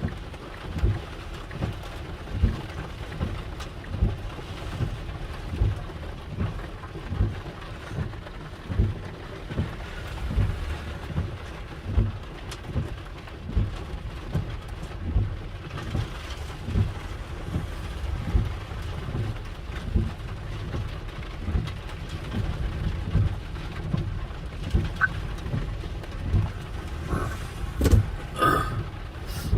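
Heavy thunderstorm rain: a steady hiss of rain with frequent short low thumps through it, and a few sharp clicks near the end.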